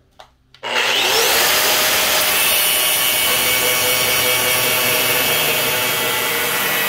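Angle grinder starting up sharply after a couple of faint clicks, its motor spinning up with a rising whine. Its cut-off wheel then cuts into a large steel circular saw blade with a steady, loud, high grinding hiss.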